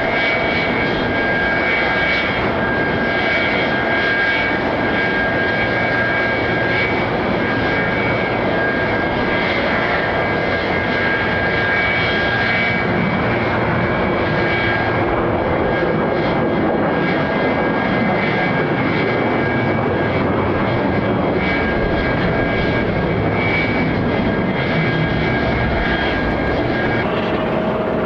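Sikorsky S-76B helicopter's turbine engines and rotor running as it taxis, with a steady high whine over constant engine noise. The whine cuts off about a second before the end.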